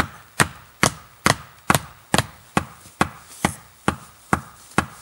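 Axes pounding wooden stakes into the ground: a steady run of sharp knocks, a little over two a second.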